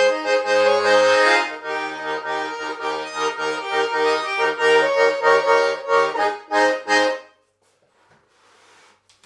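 Schwyzerörgeli (Swiss diatonic button accordion) playing a lively folk tune over a pulsing bass-button accompaniment. It closes with a few short detached chords and stops about seven seconds in.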